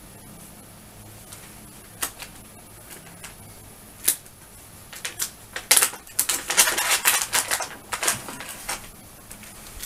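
Plastic treat bag crinkling and crackling as it is handled and rummaged in: a few single crackles, then a dense run of crinkling in the second half.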